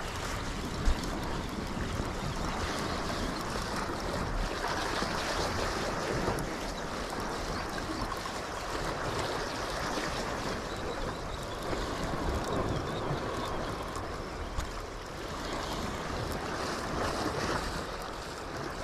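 Steady noise of sea waves washing on a rocky shore, with wind on the microphone, while a spinning reel is cranked to retrieve the line; a single sharp click about a second in.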